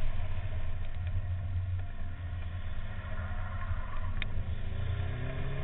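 Subaru WRX rally car's turbocharged flat-four engine running under a steady low rumble, heard from a camera mounted outside the car. In the second half the engine note climbs as the car accelerates, with a single sharp tick about four seconds in.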